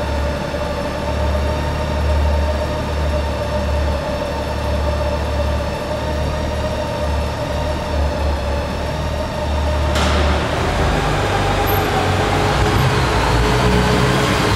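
Honda Gold Wing GL1800's flat-six engine running as the motorcycle rolls slowly in a concrete parking garage. About ten seconds in the sound turns suddenly louder and rougher as the bike comes closer.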